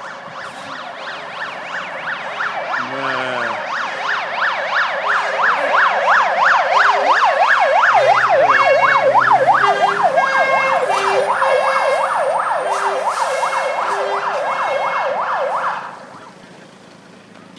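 Fire engine siren in a fast rising-and-falling yelp, growing louder as the truck approaches, then cut off abruptly near the end.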